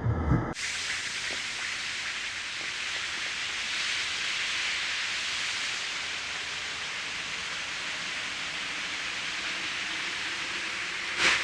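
A steady rushing hiss of noise with no tone in it, like air rushing past at speed. It starts abruptly about half a second in and ends near the close with a brief louder whoosh.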